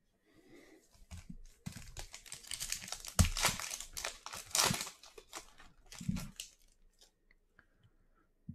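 Crinkling and rustling of plastic or foil packaging with a few sharp clicks as trading cards are handled. It is densest in the middle and thins out toward the end.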